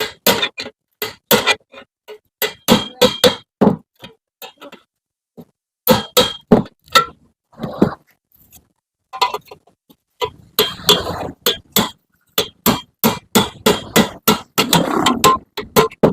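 Hammer blows on the steel muffler of a Yamaha RX-King exhaust being opened up. The strikes come irregularly with short pauses, then in a quicker run of about two a second near the end. Each blow has a short metallic ring.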